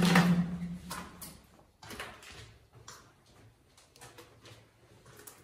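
Footsteps on a concrete floor, short faint knocks about once a second, after a louder scrape or knock at the very start.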